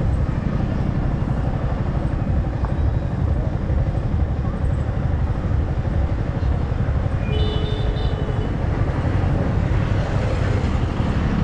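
Steady rush of wind on the microphone over a Yamaha R15 M motorcycle's single-cylinder engine running at road speed. A brief higher tone sounds about seven seconds in.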